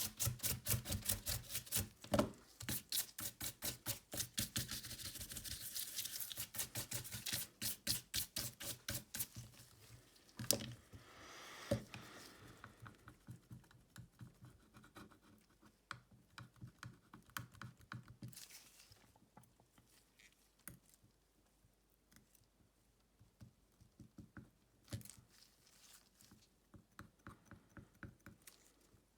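A small hand tool working on a Xiaomi Redmi Note 9S smartphone's frame, making quick, regular scraping or clicking strokes at about four to five a second, with a couple of harder knocks a little past the middle, then sparser, fainter clicks.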